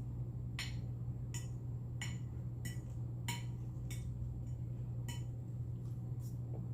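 Close-miked chewing of a sausage and egg sandwich: a series of short, wet mouth clicks roughly every half second to a second, over a steady low hum.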